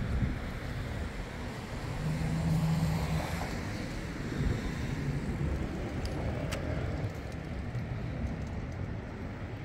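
City street traffic: cars passing with a steady low rumble, one vehicle's engine hum standing out about two seconds in.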